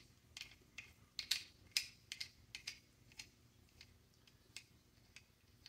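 Faint, irregular small clicks and taps of a metal track nut being turned by hand onto a T-bolt on a PVC gear-track adapter. The clicks come thickly at first and thin out toward the end.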